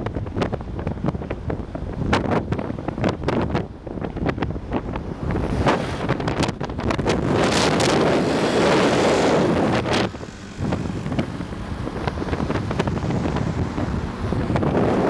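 Wind buffeting the microphone of a camera moving at road speed, over a low rumble of vehicle and road noise. The buffeting is heaviest about halfway through, then eases.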